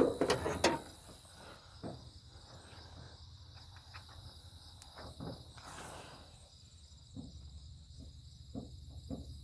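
A 1988 Ford F-150 cab door is pushed shut with a sharp metal clunk and a brief rattle at the start, as its fit is being checked. After that, crickets chirp steadily, with a few faint ticks.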